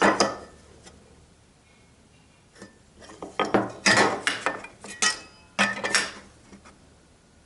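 A series of sharp clicks and knocks from a square, pencil and timber being picked up, set down and shifted on a workbench while a joint is marked out. There is one knock at the start, a short pause, then a quick cluster over about three seconds.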